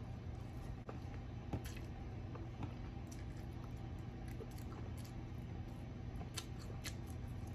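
Close-up eating sounds: chewing fried food, with soft wet mouth clicks scattered through, over a steady low hum.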